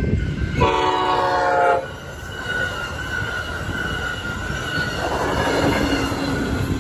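Passenger train passing a grade crossing: one train horn blast of about a second, starting about half a second in, over the rumble of bi-level passenger cars going by, with the crossing bell ringing steadily. Near the end a diesel-electric locomotive's engine passes with a low drone.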